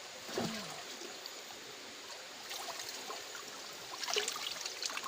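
River water running and trickling, with a cluster of short sharp sounds near the end.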